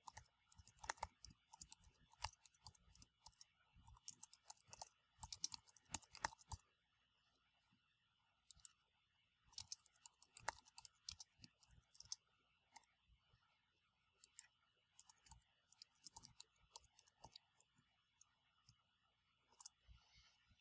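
Faint computer keyboard typing: quick runs of key clicks, a pause of about three seconds a third of the way in, then more typing, sparser towards the end.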